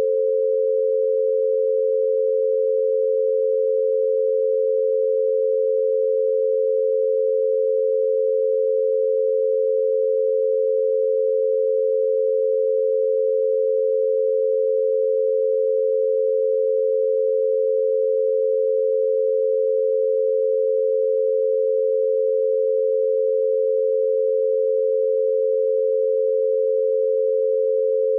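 An 88 Hz binaural beat: two steady pure tones a little below and a little above 500 Hz, about 88 Hz apart, held unchanged, one meant for each ear over headphones.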